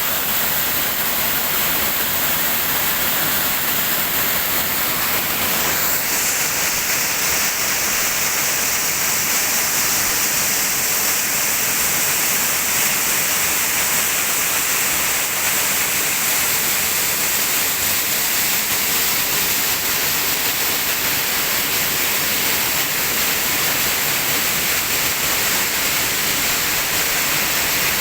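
Waterfall rushing: a steady, loud hiss of falling and splashing water, its tone brightening slightly about six seconds in.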